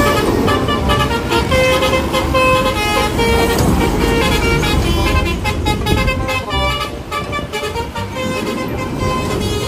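Multi-tone 'telolet' bus horn playing a quick tune of short notes, over the low running of a big vehicle's engine.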